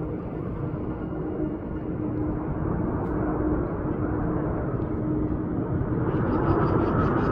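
Jet airliner on approach to land, its engine noise growing steadily louder, with a steady hum and a higher whine coming in near the end.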